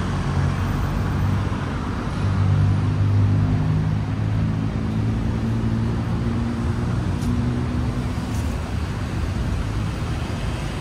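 Steady city traffic rumble, with one vehicle's low engine drone swelling about two seconds in and fading away by about eight seconds.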